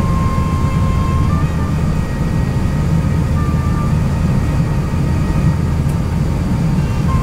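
Steady low rumble inside an Airbus A350-900's cabin as it taxis slowly with the engines at idle, with a faint melody of cabin music over it.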